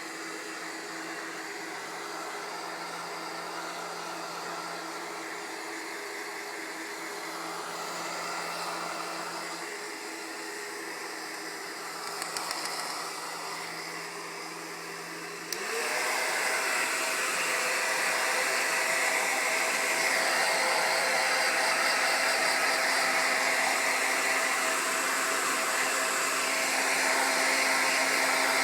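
Handheld hair dryer blowing steadily, a whirring rush of air over a motor hum. About halfway through it gets suddenly louder and its motor pitch steps up.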